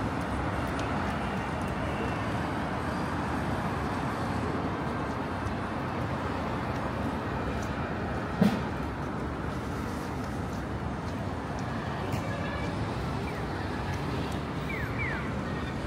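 City street traffic noise, a steady hum of passing vehicles, with one sharp knock about halfway through and a few brief high chirps near the end.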